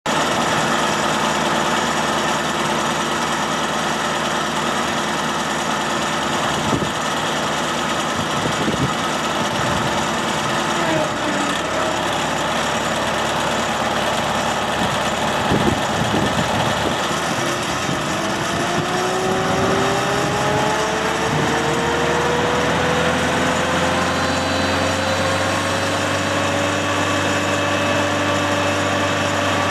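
Engine of a Morbark MXD52 stump grinder running steadily, with a few short knocks in the first half. From a little past the middle its pitch rises gradually and levels off at a higher, fuller-sounding speed, as when the machine is brought up to working revs.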